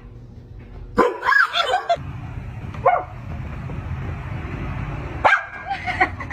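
A dog barking and yipping: a run of loud barks about a second in, a single short bark near three seconds, and a few more near the end, over a steady low rumble.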